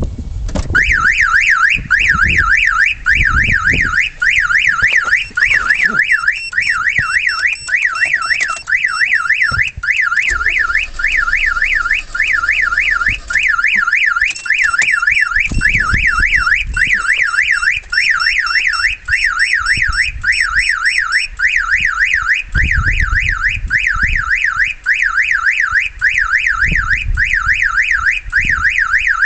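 Carvox 2300C car alarm siren sounding on a Mazda 323F, a loud, fast up-and-down warble that starts about half a second in and keeps going.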